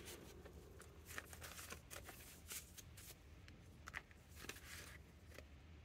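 Near silence with faint rustling and a few soft ticks of paper banknotes being handled and flicked through.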